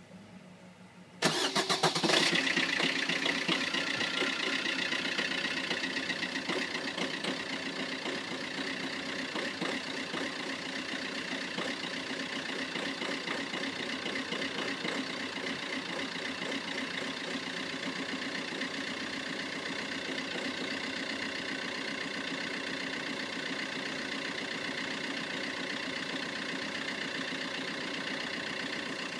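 Vauxhall Corsa ecoFLEX engine cranking and catching about a second in, with a loud rise in revs, then settling to a steady cold idle. The owner says the engine misfires when cold.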